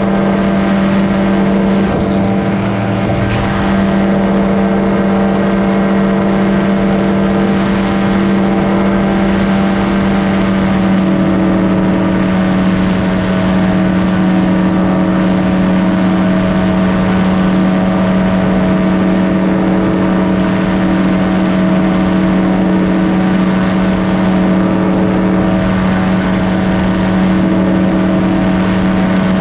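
Powered parachute's engine and propeller running at a steady pitch, heard from the pilot's seat.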